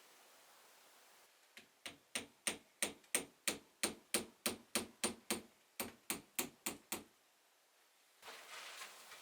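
A hammer driving a nail into wood: about fifteen quick, even blows, roughly three a second, with a short pause midway, each with a light metallic ring. Near the end a steady rustling noise starts.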